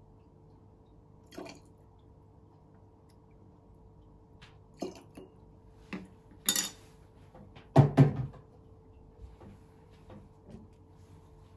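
A few separate knocks and clinks as a plastic measuring spoon and small glass jar are handled and set down on a wooden table, the loudest a double thump about two-thirds of the way through. A faint steady hum lies underneath.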